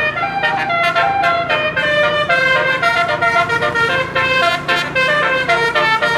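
A bus's 12-note telolet air horn playing a fast tune, several tones sounding together, the notes changing about every quarter second.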